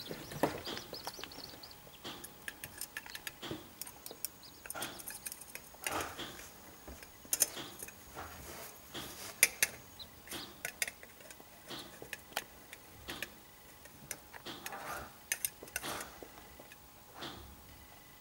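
Irregular light clicks and taps of orange plastic feeding tweezers and corncrake chicks' bills picking at food in a small plastic dish. A short high chick call sounds right at the start.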